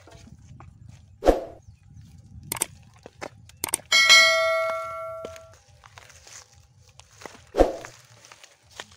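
A few quick clicks, then a bright bell ding that rings and fades over about a second and a half: the notification-bell sound effect of a subscribe-button animation. Two dull knocks, one about a second in and one near the end.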